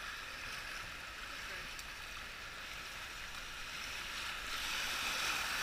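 Whitewater rapids rushing around a canoe's hull, a steady rush of water that grows louder about four and a half seconds in as the canoe nears a breaking wave.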